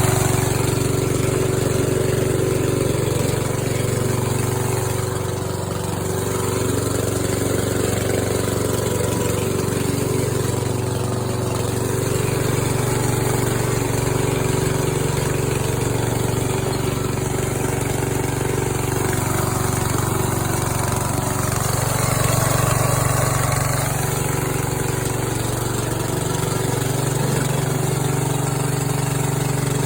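Riding mower's 14 hp Briggs & Stratton single-cylinder engine running steadily, its level rising and falling only slightly.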